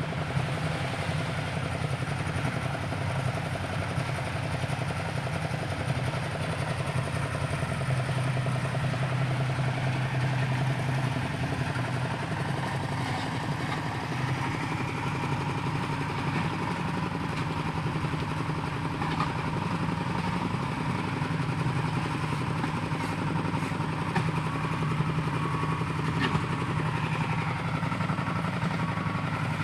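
Engine running steadily at a constant speed during concrete pouring for a road.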